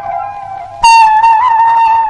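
Background music: a flute-like melody of long held notes, with a new, louder note coming in just under a second in.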